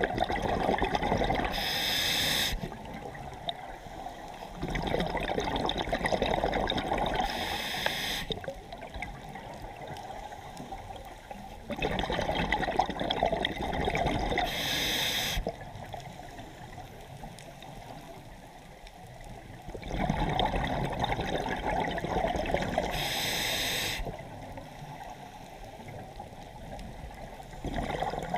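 Scuba diver breathing through a regulator underwater. There are about four breath cycles, each a few seconds of rushing, gurgling air and bubbles with a short high hiss near the end, and quieter pauses between breaths.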